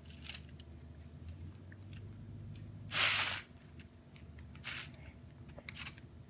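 Metal spoon scraping and spreading pizza sauce over dough on a foil-lined pan: four short scraping strokes, the loudest about three seconds in.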